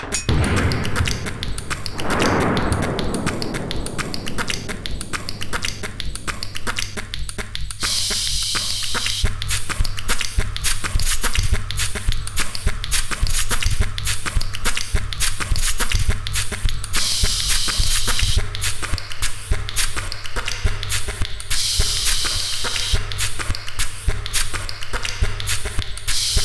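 Homemade percussive soundtrack: fast clicks and taps over a steady low hum, with a falling swoosh about two seconds in and three hissing bursts, like an aerosol spray, each lasting a second or so.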